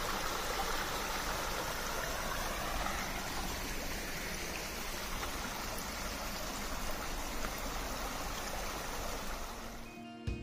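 Small mountain stream running over mossy rocks and a little waterfall: a steady, even rush of water that cuts off suddenly near the end.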